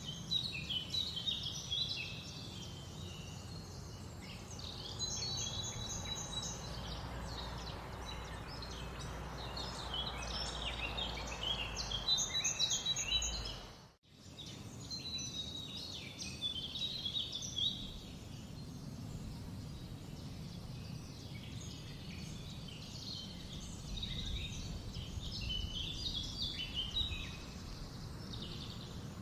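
Many small birds chirping and twittering over a steady low background rumble. The sound drops out briefly about halfway through, then resumes.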